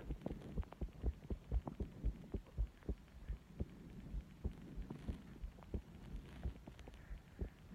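A person's heartbeat recorded at the chest: repeated low thuds of the heart sounds.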